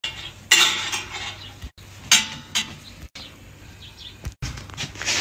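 Wicker strands of a woven back basket scraping and rustling in short bursts as the basket is repaired by hand. The longest burst comes about half a second in, followed by shorter ones.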